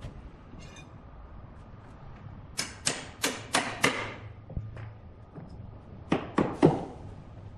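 Sharp knocks as a worker secures a large log on a band sawmill carriage: five quick strikes midway, then three more near the end, over a low steady machine hum.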